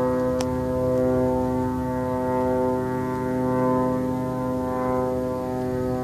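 Military drone flying overhead, giving a steady droning hum made of many held tones. A brief click sounds about half a second in.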